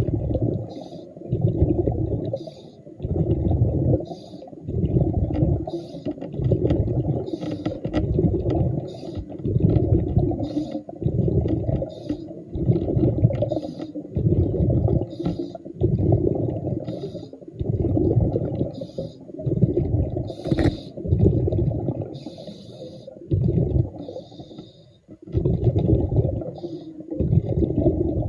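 Underwater sound of a diver breathing from an air supply: muffled rumbles of exhaled bubbles about every second and a half to two seconds, alternating with short hissing breaths.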